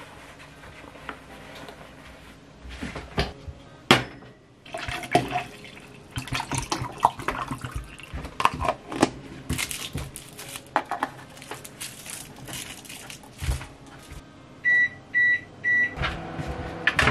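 Kitchen handling sounds: knocks and clatter of a plastic jug and cup, with liquid poured into the cup. Near the end an appliance gives three short, even electronic beeps.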